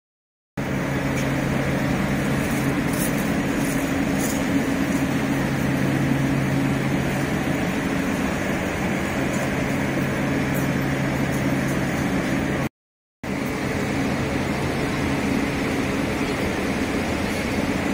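Watergen atmospheric water generator running: a steady machine hum with a few constant low tones, broken twice by short silent gaps.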